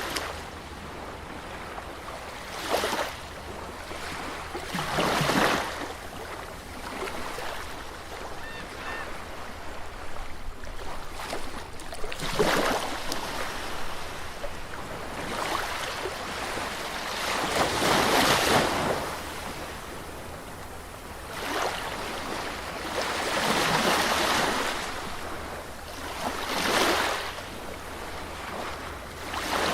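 Sea waves breaking on a beach: about six louder surges of surf at uneven intervals over a steady wash of water.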